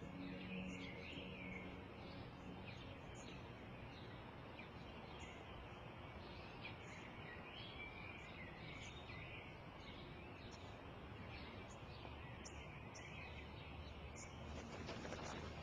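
Small birds chirping over a faint, steady outdoor hiss, with a brief rustle near the end.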